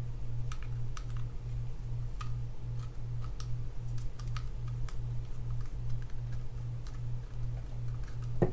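Scattered light clicks and taps of a screwdriver and small screws as the bail-area screws are undone on a Penn Spinfisher VI 7500 spinning reel. Under them runs a low hum that pulses about three times a second.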